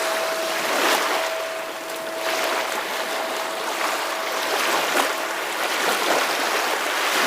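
Ocean surf washing in repeated surges, with a single steady ringing tone held over it that fades away about halfway through.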